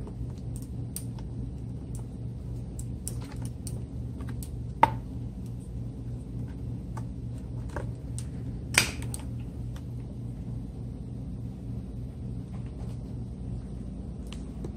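Hands and tools working around a pocket bike's engine to reach the spark plug: scattered light clicks and two sharper metallic clicks, about five and nine seconds in, over a steady low hum.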